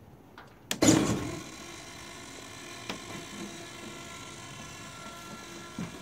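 A sharp clack about a second in, then a steady electrical hum with several held tones, as the radio-control model airplane's servos and electronics are powered up for a system check. Light clicks come near the middle and near the end.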